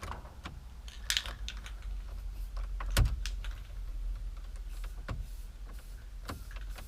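Scattered light clicks and taps from parts being handled in a car, with one louder knock about three seconds in, over a low steady rumble.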